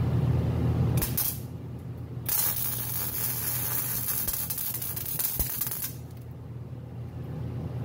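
MIG wire-feed welder arc crackling and sizzling as weld is laid into a sprocket's oversized center hole to fill it up. A short burst about a second in, then a steady run of about three and a half seconds. A low steady hum is heard before the first burst.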